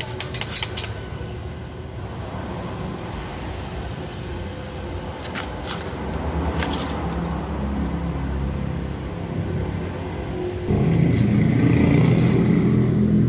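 An engine running steadily, with a few sharp metal taps in the first second. About ten and a half seconds in it jumps suddenly to a louder, fuller hum that holds to the end.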